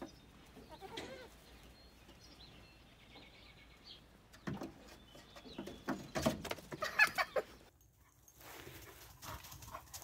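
Young goat bleating several times, loudest in a run of calls in the second half.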